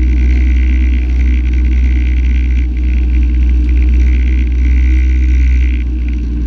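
Renault Clio rally car's engine idling steadily, heard from inside the stripped, roll-caged cabin.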